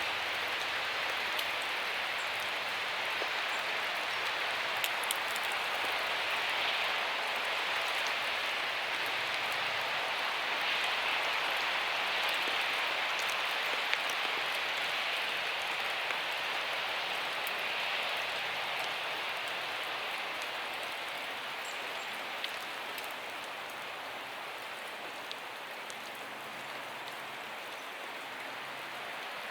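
Steady rain falling, an even hiss with a few faint drop ticks, easing slightly near the end.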